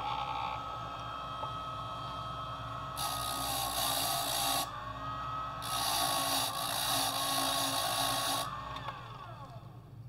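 HPC Blitz key machine's motor running with a steady whine while a freshly cut brass key is pressed twice against the deburring wheel, each time a loud rasping hiss. About eight and a half seconds in, the machine is switched off and its whine falls away as the motor winds down.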